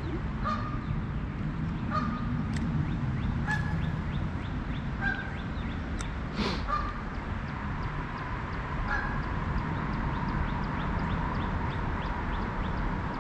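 Short bird calls, one every second or two, over a steady low rush of creek water, with a brief swish of noise about six seconds in.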